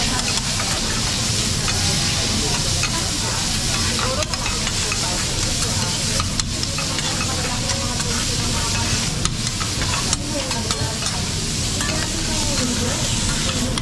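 Food sizzling on a teppanyaki griddle, a steady frying hiss with a few sharp clicks now and then.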